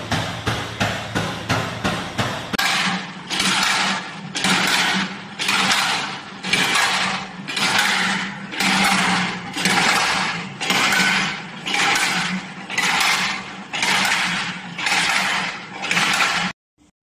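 Bicycle frame fatigue-testing machine cycling under load: fast, even clicking over a steady hum. About three seconds in, this gives way to a rhythmic hiss-like stroke repeating a bit more than once a second. The sound stops abruptly near the end.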